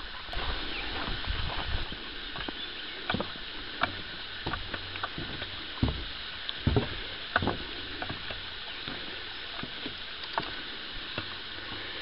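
Footsteps of a person walking along a bush track, irregular soft knocks about once a second, over a steady background hiss.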